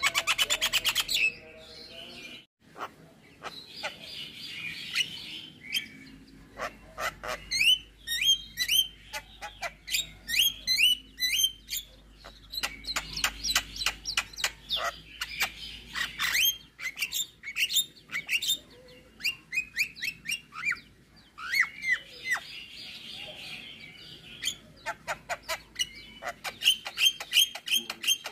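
Javan myna singing a varied, mimicry-filled song. It opens with a fast buzzy rattle, then gives bursts of sharp whistled notes, many slurring downward, mixed with harsh scratchy phrases and short pauses.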